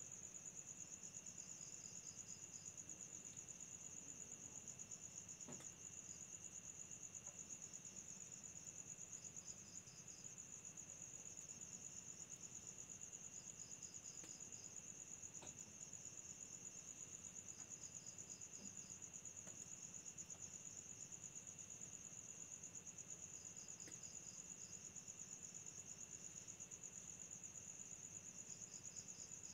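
Crickets trilling steadily at night, faint and unbroken, with short runs of lower chirps every four seconds or so from another insect.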